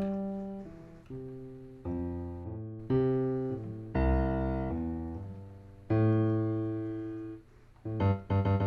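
Instrumental music: keyboard chords, each struck and left to ring and fade, one every second or two, then quicker repeated chords near the end.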